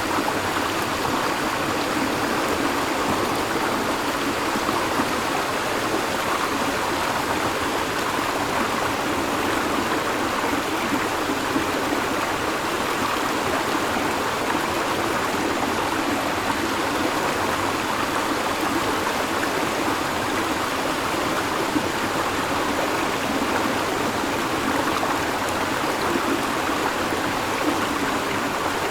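River water flowing steadily over rocks, an even, continuous rushing and babbling.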